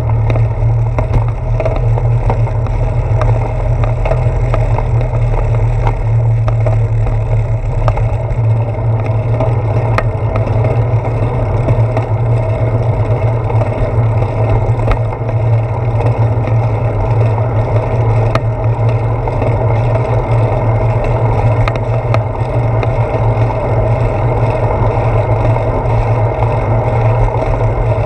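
Steady rumble of wind and rolling noise from a bicycle in motion, picked up by a handlebar-mounted GoPro Hero 4, with scattered sharp clicks and knocks from bumps. The wheels roll over a wooden boardwalk at first, then onto a paved path.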